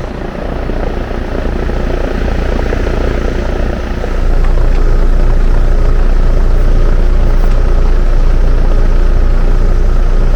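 Heat pump outdoor unit running: steady hum and rumble of the condenser fan and compressor, getting louder about four seconds in and then holding steady.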